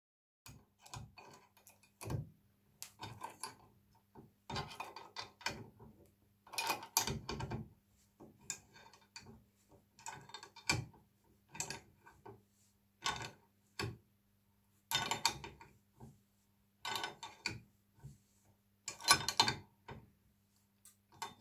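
Restored adjustable wrench being worked by hand: its jaw adjusted and fitted to a nut on a bolt, giving short bursts of metal clicking and scraping about every one to two seconds.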